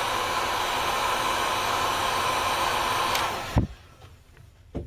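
Heat gun blowing hot air steadily with a faint whine, heating the phone part to soften its adhesive; it stops about three seconds in, followed by a sharp click.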